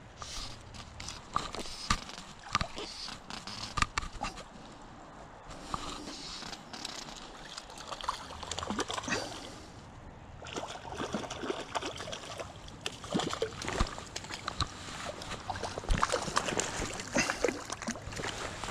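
A hooked fish splashing and sloshing at the surface of a shallow creek while being played on a fly rod, over the flow of the stream, with irregular sharp clicks and knocks throughout.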